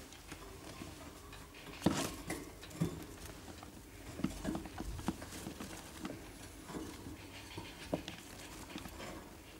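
Young pet rats scrabbling in shredded paper bedding and a fleece hammock while a hand handles them: irregular light rustling and small clicks, with a sharper knock about two seconds in.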